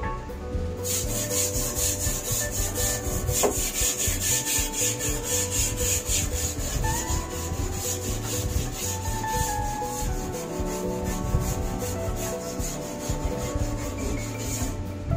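A stiff hand brush scrubbing rusty sheet metal in a car's cowl with rapid, even back-and-forth strokes, starting about a second in.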